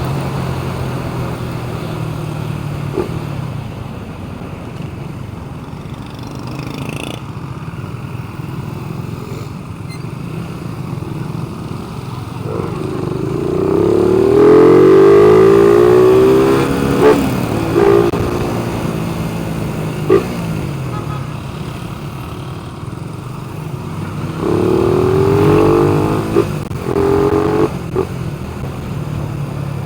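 A motor vehicle engine running steadily, with two rises in revs that climb and fall back. Short sharp blips come between and after them.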